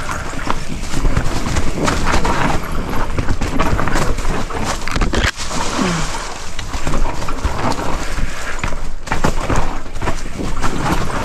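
Mountain bike rolling down a rocky trail strewn with dry leaves: tyres crunching through the leaves and clattering over rocks, with frequent sharp knocks from the bike.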